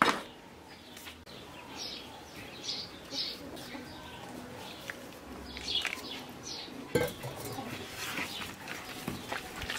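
A metal spoon clinks once at the start, then birds chirp over quiet food-preparation sounds: water poured into a wooden bowl of masa, and hands starting to squeeze and mix the dough near the end.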